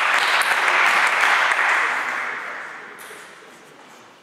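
Spectators applauding after a point in a table tennis match, the clapping dying away over the last two seconds.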